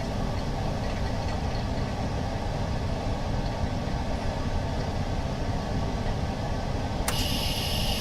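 Steady low mechanical hum of a running machine. About seven seconds in a sharp click sounds, and a high hiss with a thin whistling tone starts and keeps going.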